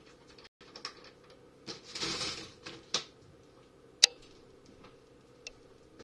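Scattered light clicks and knocks of someone handling things in a kitchen, with a short rustling burst about two seconds in and one sharp click about four seconds in.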